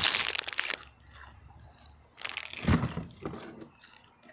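Plastic snack packaging crinkling and being crushed in two bursts: a loud one at the start lasting under a second, and another about two seconds in.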